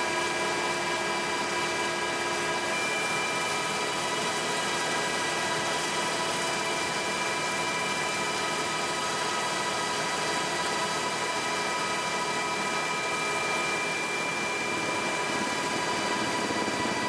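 Helicopter cabin noise in flight: a steady turbine whine of several tones over a dense, even rush of engine and rotor noise, unchanging throughout.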